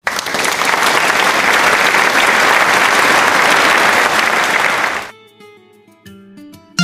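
A crowd clapping and applauding steadily for about five seconds, then stopping abruptly. A few soft pitched music notes follow near the end.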